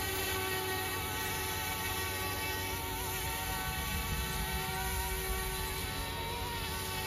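Small electric RC helicopter (YuXiang F06 / Eachine E135) running: a steady whine of motor and rotors with its pitch wavering slightly as it comes down to land, still spinning after it settles on the grass.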